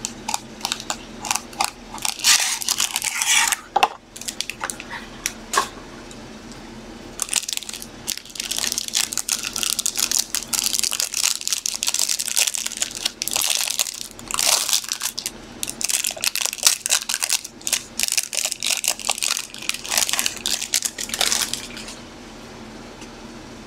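Crinkling of clear plastic card sleeves and holders, with many small clicks and rustles as trading cards are handled and slid into them. It stops near the end.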